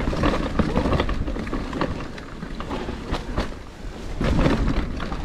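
Mountain bike riding fast down a dirt forest trail: knobby tyres on loose dirt and roots, the bike clattering and rattling over bumps, with wind buffeting the microphone.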